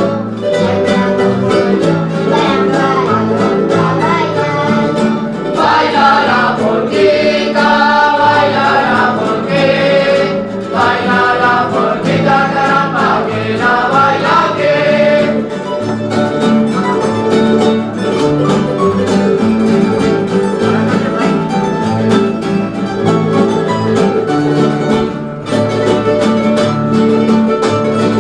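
Live Canarian folk group playing guitars and other plucked strings in a steady strummed rhythm. Voices sing a verse from about five seconds in until about halfway through, then the strings carry on alone.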